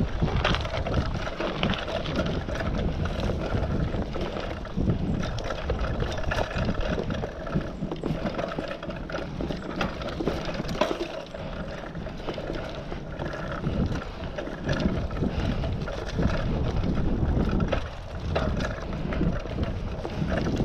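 Mountain bike being ridden along a leaf-strewn dirt singletrack: tyres rolling over dirt and dry leaves and the bike rattling over bumps with frequent small knocks, over a steady rush of wind on the microphone.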